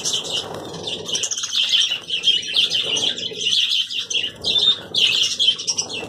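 A flock of budgerigars chattering and chirping without a break, with wings flapping as birds move on and off a hand.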